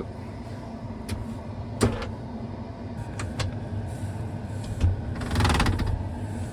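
Steady drone of a running combine heard inside the cab, with scattered clicks and knocks from handling the operator's seat and its wiring, and a brief rattling buzz about five and a half seconds in.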